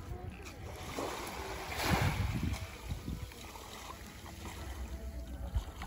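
Small waves lapping on a sandy shore, one washing in and swelling to its loudest about two seconds in before easing off, over a steady low rumble.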